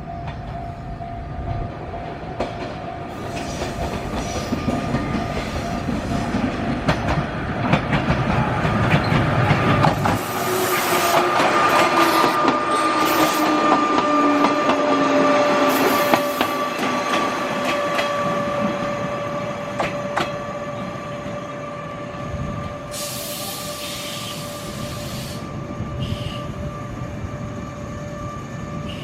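Electric commuter train slowing into a station: wheels clicking over the rails and a steady high brake squeal, with a tone falling in pitch as it slows, building to its loudest about halfway through. A short hiss comes about three-quarters of the way in.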